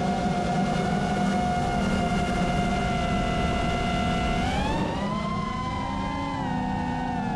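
FPV drone's electric motors and propellers whining at a steady pitch, then rising in pitch about four and a half seconds in as the throttle is opened.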